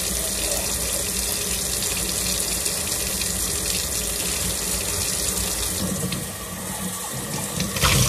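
Kitchen faucet running steadily into a stainless steel sink. Near the end the water splashes louder as a ceramic mug is rinsed under the pull-down sprayer.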